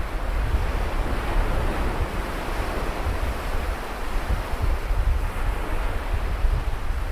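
Sea surf washing onto a beach in a field recording, with wind rumbling on the microphone.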